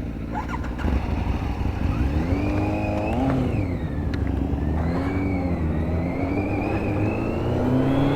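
Motorcycle engine accelerating through the gears: its pitch climbs, drops back at a shift about three and a half seconds in and again about a second later, then climbs slowly and steadily.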